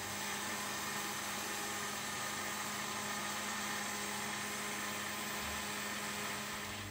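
Electric countertop blender running steadily, its motor whirring as it blends a liquid cake mix of eggs, sugar, oil and milk to dissolve the sugar.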